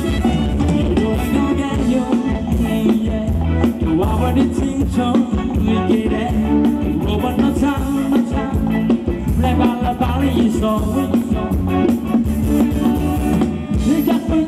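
Live Thai ramwong band music played loud through PA speakers, with a steady drum-kit beat and a singer.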